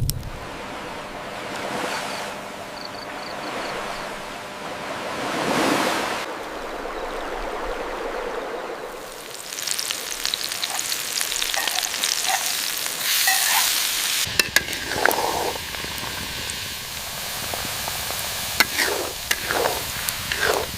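Food sizzling and frying in a pan over a fire while being stirred, a steady hiss with scattered sharp clicks and knocks in the second half.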